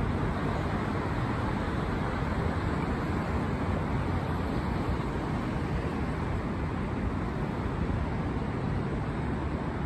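Steady city traffic noise, an even rumble and hiss with no distinct events standing out.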